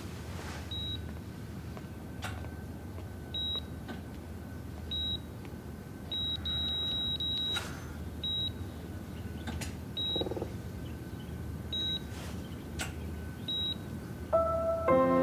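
Hospital patient monitor beeping: short high beeps at uneven intervals, with a quick run of beeps about six to seven seconds in, over a low steady hum. Soft music comes in near the end.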